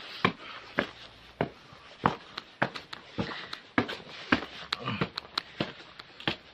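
Footsteps climbing a staircase: a run of sharp, irregular knocks, about two or three a second.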